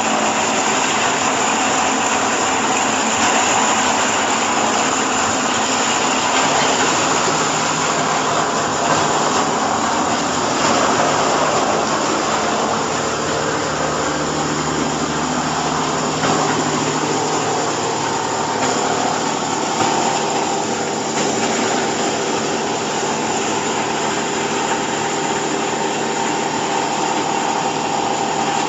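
Chopped-hay bagging baler machine running steadily, a continuous mechanical noise with a low hum and a higher steady tone.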